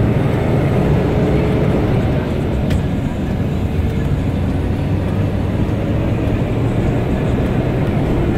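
Road vehicle being driven at a steady speed: a continuous low engine drone with tyre and road rumble.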